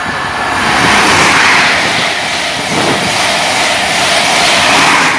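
Passenger train passing through the station at speed on the near line: a loud, steady rush of wheel-on-rail and wind noise that builds in the first second.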